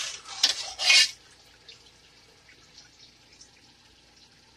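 Boiled beef pieces and yakhni broth splashing off a ladle into a metal cooking pot, a few splashes in the first second, then faint drips.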